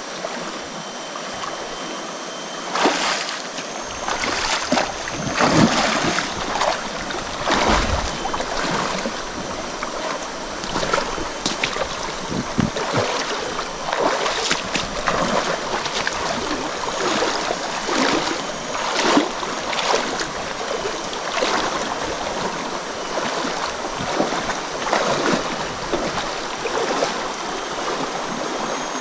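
Shallow jungle stream running, with irregular splashes in the water from about three seconds in.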